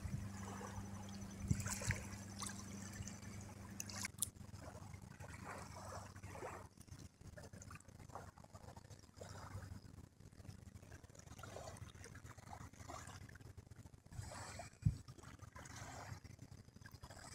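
Small waves lapping and trickling against the stones at the river's edge. A low, steady hum is heard for the first four seconds or so, and there is one sharp tap a couple of seconds before the end.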